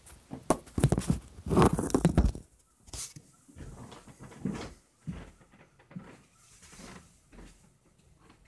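Handling noise of a phone being set up, with loud rubbing and knocking for the first couple of seconds, then scattered thuds and scuffs of feet on a carpeted floor, about one every half second to second, dying away near the end.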